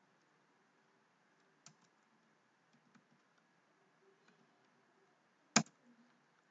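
Sparse, faint computer keyboard keystrokes, with one sharp, much louder click about five and a half seconds in.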